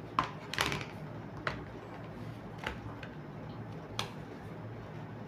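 A tablet being pressed into a stiff hard case, its edges clicking into place. A quick cluster of sharp clicks comes in the first second, then single clicks about a second apart.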